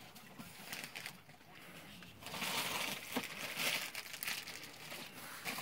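Packing material crinkling and rustling as it is handled and pulled from a cardboard box, starting about two seconds in and going on in irregular bursts.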